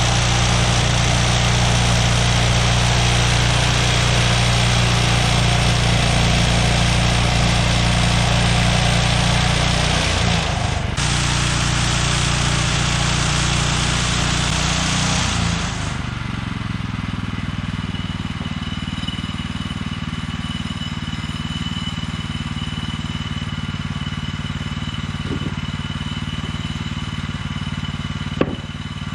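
Engine of a Woodland Mills HM126 bandsaw mill running under load while its band blade saws through a basswood log, a steady hiss of cutting over the engine hum. About 16 s in the cut ends; the engine runs on a little quieter with a faint steady whine, and there is a sharp click near the end.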